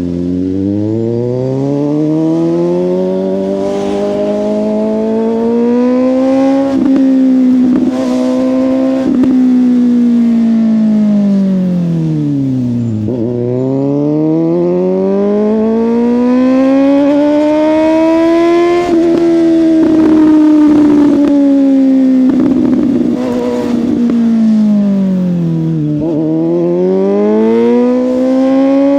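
Suzuki GSX-S750 inline-four engine through a Yoshimura exhaust, ridden on the road. It climbs through the revs, falls back to low revs about 13 seconds in, pulls up again, eases down to another low near the end, then climbs once more. Brief gusts of wind noise come in between.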